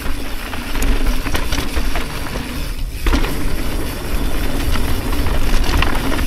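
Mountain bike riding down a rough dirt trail: a continuous rumble of tyres on the ground with many quick rattles and knocks from the bike over bumps, and wind on the action camera's microphone.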